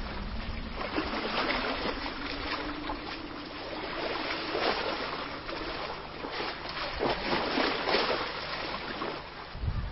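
Sea waves washing and splashing against a rock face: a rushing surf noise that swells and ebbs every few seconds.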